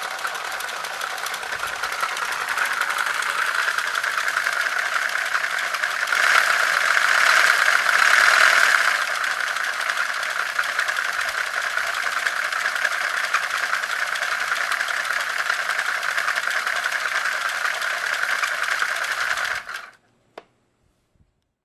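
Motor-driven LEGO model of an in-line four-cylinder engine running: plastic crankshaft, pistons, push rods and camshaft clattering in a steady fast rattle, louder for a few seconds partway through. It stops suddenly near the end, followed by a single click.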